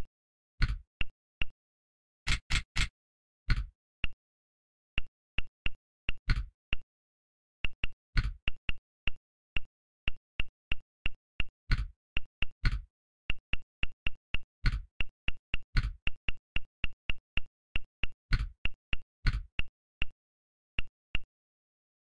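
Smartphone on-screen keyboard key-press clicks during typing: a long run of short clicks at an uneven typing pace, about three a second, some louder and deeper than the rest, with silence between them.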